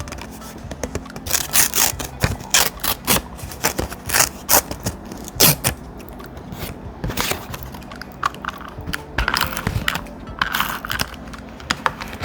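Thick paper being handled for scrapbook journaling, rustling and crinkling in short irregular bursts with sharp crackles, in two busy spells with a lull between them.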